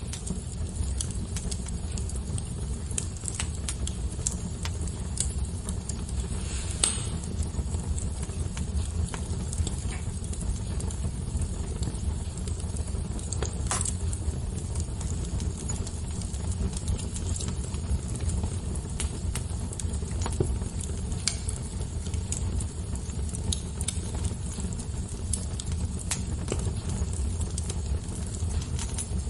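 Wood fire crackling: scattered sharp snaps and pops over a steady low rumble of the burning fire, with two louder pops, one about a quarter of the way in and one near the middle.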